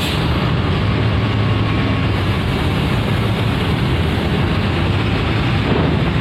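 Large bus's diesel engine running nearby, a steady low rumble.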